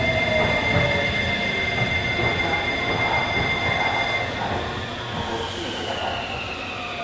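Meitetsu 3500 series train heard from inside the car, its Toyo Denki GTO-VVVF inverter and traction motors whining in pitches that slide down as the train brakes to a stop, over steady wheel and rail noise. A steady high tone cuts off about four seconds in, and there is a short hiss about five seconds in.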